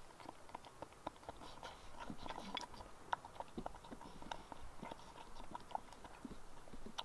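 Faint, irregular small clicks and taps from paintbrushes, fabric paint pots and a water pot being handled while painting on denim.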